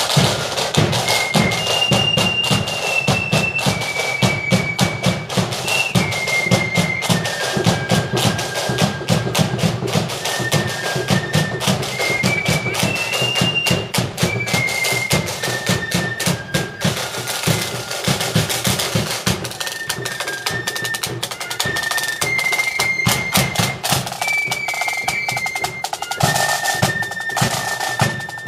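Marching flute band playing: a tune on flutes over continuous snare drum rolls and beats with a bass drum.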